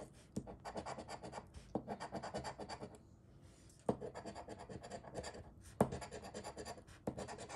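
Coin scraping the latex coating off a scratch-off lottery ticket in quick, rapid strokes, with a few sharper clicks and a brief pause about three seconds in before the scratching resumes.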